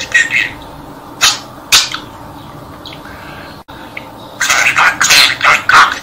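Pet budgerigar chattering in its small, raspy voice: a few short bursts in the first two seconds, then a quick, almost unbroken run of them in the second half.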